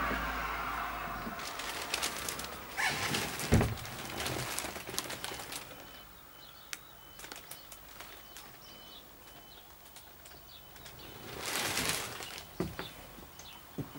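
Scattered knocks, rustles and handling noise of someone moving about inside a caravan with a handheld camera, with a heavy thump about three and a half seconds in. In the quieter middle stretch, faint short bird chirps are heard.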